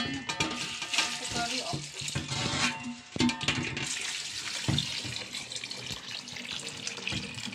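Water poured from a metal bowl into an aluminium pot of lychees, a steady splashing pour onto the fruit to wash them. Metal bowls clank and ring briefly at the start.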